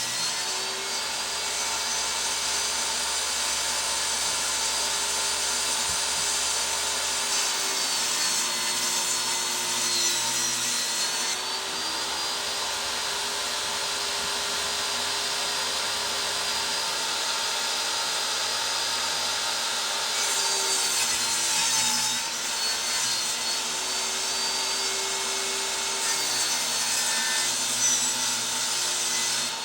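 Electric saw running steadily while ripping wood lengthwise to width. The motor's hum sags and recovers several times as the blade takes the load. The high rasp of the cut is strongest through the first third and again about two-thirds through.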